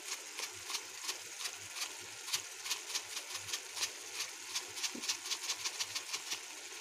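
Metal spatula scraping and clicking against a metal kadai as a tomato-onion masala is stirred and fried, about four strokes a second over a steady sizzle. The strokes stop shortly before the end.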